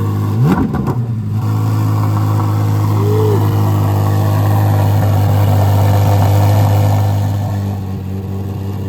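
A high-performance car engine revved once in a quick blip, then running loudly at a steady pitch, dropping a little in level near the end.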